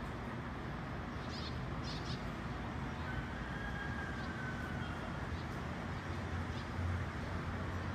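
Outdoor dawn ambience: a steady low hum and hiss, with a few faint short high chirps and a thin drawn-out whistle, falling slightly, about three seconds in.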